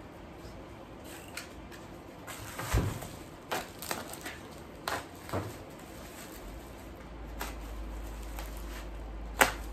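Utility knife slicing through the yellow tape and plastic wrap of a long package, with scattered crackles and clicks of the plastic as it is cut and handled, and one sharp click near the end.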